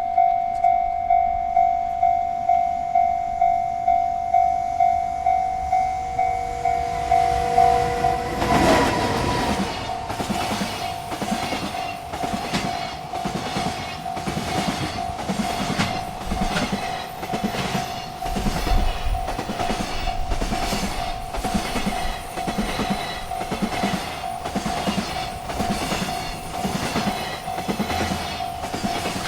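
Railroad crossing bell ringing in steady strokes. About eight seconds in, a freight train arrives and its wheels clack over the rail joints in an even rhythm while the bell keeps ringing.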